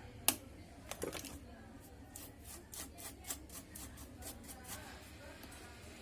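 Hand tools working on a CRT TV circuit board while the weak capacitor beside the vertical IC is swapped: a sharp click near the start, then a run of light scraping ticks.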